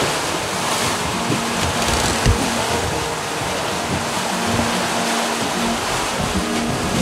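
Steady rush of sea water and waves along the hulls of a sailing catamaran under way at about seven knots.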